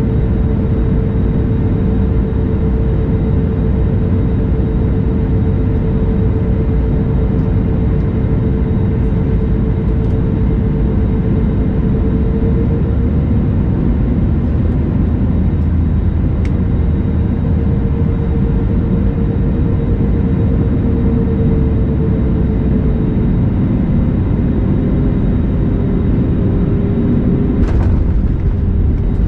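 Airbus A320neo cabin noise: a steady jet engine and airframe rumble with a constant engine hum that drifts slightly lower in pitch past the middle. There is a short knock near the end.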